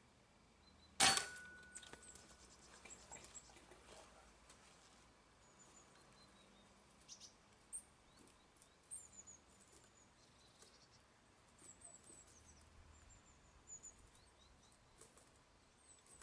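A single air rifle shot about a second in, a sharp crack with a brief ringing tone after it. Faint high bird chirps and light ticks follow.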